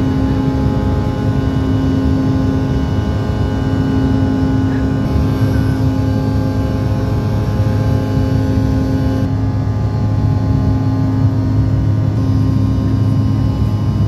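Jet airliner engines running during takeoff: a loud, steady drone with several steady tones over a low rumble.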